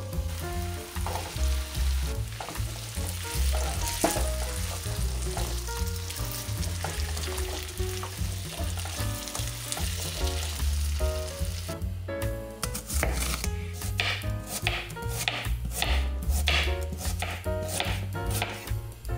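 Raw potato cubes sizzling as they fry in hot sunflower oil in a nonstick pan, stirred now and then with a plastic spatula. About twelve seconds in the sound changes to a knife chopping an onion on a wooden cutting board, a run of sharp strokes.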